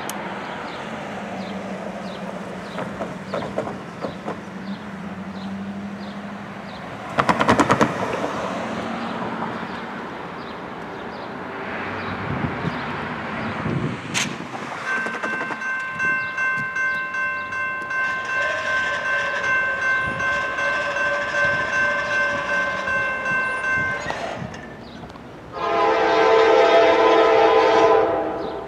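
A railroad crossing bell starts ringing about halfway through, a steady rapid dinging. Near the end the approaching Norfolk Southern GE D9-40CW locomotive sounds its horn in one long, loud chord.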